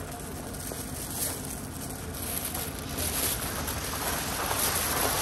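Thin plastic takeaway bag rustling and crinkling as it is handled and opened, getting louder about three seconds in, over a steady street background hum.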